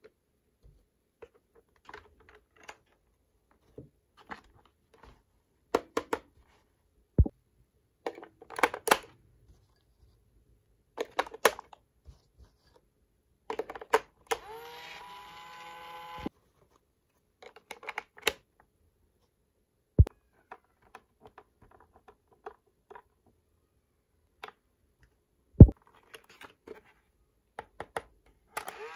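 Small plastic toy appliance pieces being handled, clicking and tapping at irregular intervals, with a few sharper snaps. About halfway through, the toy gives off a steady electronic tone for about two seconds.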